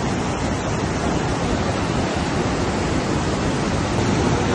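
Muddy floodwater rushing steadily across the ground: a flash flood in full flow after heavy rain.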